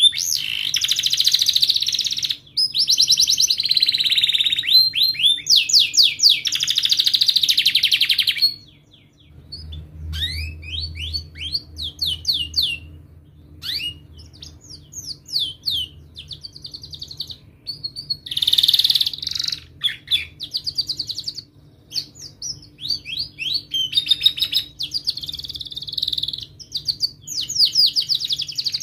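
Domestic canary singing: a loud run of fast rolling trills and chirps for about the first eight seconds, then sparser, quieter chirps and short trills, with louder trilled phrases about two-thirds of the way through and near the end.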